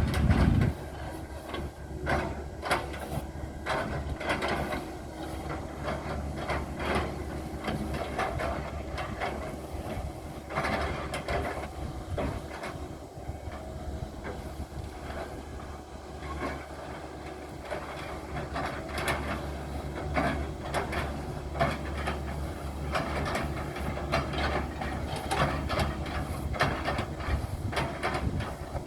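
Excavator's diesel engine running steadily, with many irregular metallic clanks and knocks from the machine at work. A louder low rumble cuts off within the first second.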